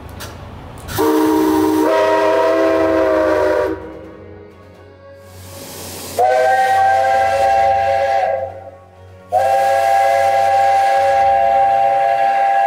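JNR 8620-class steam locomotive 58654's steam whistle blown three times, several tones sounding together. The first blast lasts about three seconds and steps up in pitch about a second in; the second is shorter; the third is long and still sounding at the end. Steam hisses between the blasts.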